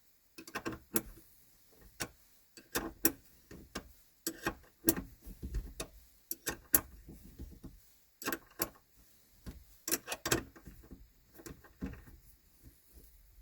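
Irregular metallic clicks and taps of a spanner and nut as a locking nut is fitted and tightened onto the end of a bolt on a Dolomiti gear-shifter linkage.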